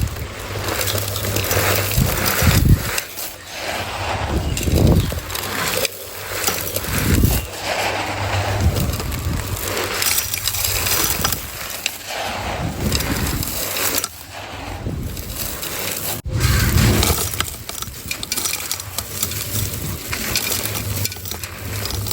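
Hand-moulded dried texture pieces of sand, cement and chalk being crumbled between the fingers, crunching and crackling irregularly with heavier crunches every second or two.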